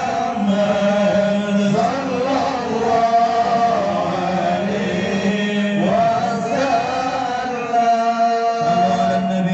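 A male voice chanting a sholawat, a melodic Islamic devotional chant, in long held notes that slide from one pitch to the next.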